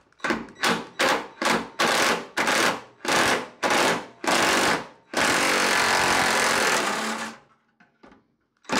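Cordless impact wrench hammering on a rusted, penetrant-soaked 1/2-inch body bolt: about ten short bursts, roughly two a second, then a steady run of about two seconds, and a fresh run starting at the very end as the bolt is worked loose.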